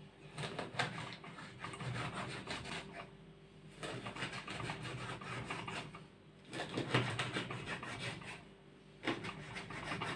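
Kitchen knife sawing through skin-on pink salmon fillet against a wooden cutting board, in four runs of quick strokes with short pauses between.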